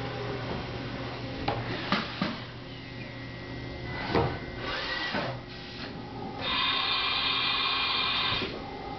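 A powered-up Haas VF-3SS vertical machining centre hums steadily in a machine shop, with a few scattered knocks and clicks. A high buzzing whine comes in past the middle and lasts about two seconds.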